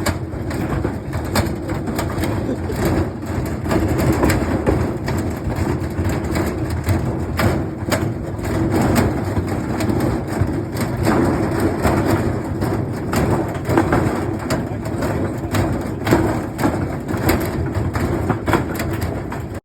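Washing machine running: a steady, wavering rumble under frequent irregular knocks and clatters.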